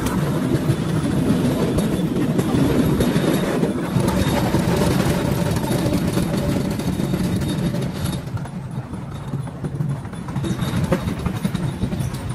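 Cambodian bamboo train (norry) running along the rails: a steady motor-and-wheel rattle from the cart and track. The noise drops a little about eight seconds in.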